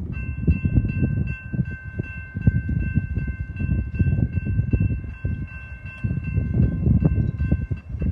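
A train rolling past with a heavy rumble and a rapid clatter of wheels. A steady, high-pitched multi-tone squeal is held over it throughout, typical of steel wheels squealing against the rail.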